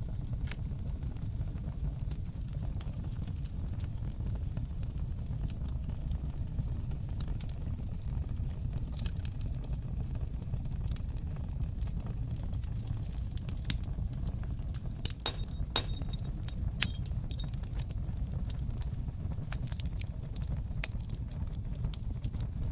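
Fire crackling in a stone fireplace: a steady low rumble of the flames with scattered sharp pops and snaps, one much louder pop about three-quarters of the way through.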